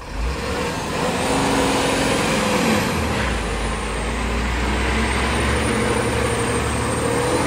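Loaded diesel truck's engine running hard under load as it drives out of soft, wet ground, a steady heavy rumble that starts about a quarter second in, with a thin high whine over it.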